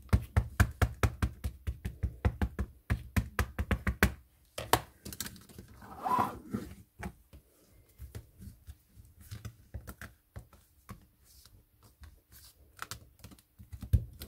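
A plastic ink pad patted rapidly onto a rubber stamp, a quick run of taps about five a second, re-inking the stamp. After about four seconds come quieter, scattered taps and rubbing as hands press the card down onto the inked stamp.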